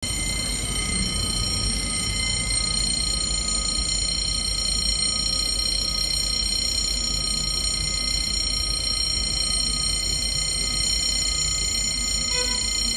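Level crossing warning bell ringing steadily as the crossing barriers lower.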